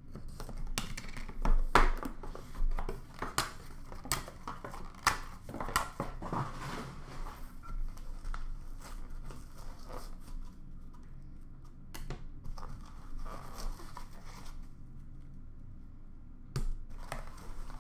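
Packaging crinkling, rustling and tearing as a sealed hockey card box is opened and its cards are lifted from the foam insert, with scattered clicks and knocks. It is busiest in the first half and sparser after.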